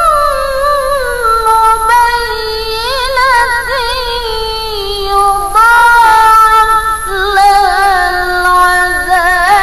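A woman's voice in melodic Qur'an recitation (tilawah), drawing out long vowels ornamented with rapid pitch wavers. The melody steps slowly down, leaps up about halfway through, then falls again.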